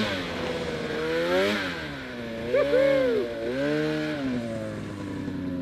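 Snowmobile engine revving up and down repeatedly while pushing through deep powder, with its hardest rev a little past halfway, then settling to a steadier pitch near the end.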